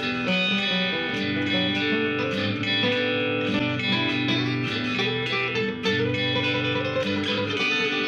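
Background music: a song led by guitar.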